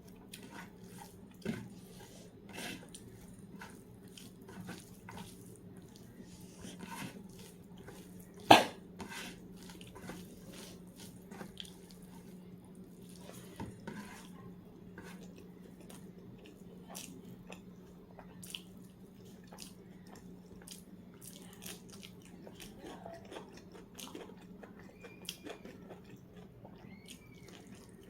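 Eating sounds: chewing with scattered small clicks and taps on a plate, one sharp clack about eight and a half seconds in, over a steady low hum.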